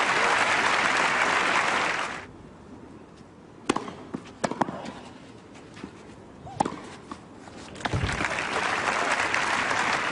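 Crowd applauding for about two seconds, then a short rally of a few sharp tennis-ball strikes off rackets, then applause again from about eight seconds in.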